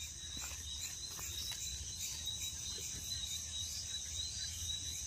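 Night-time chorus of crickets chirring steadily: a continuous high trill with a fainter, higher pulsing band above it.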